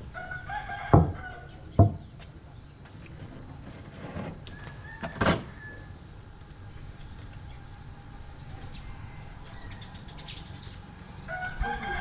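A rooster crowing, with two sharp knocks about a second in and a steady high whine underneath.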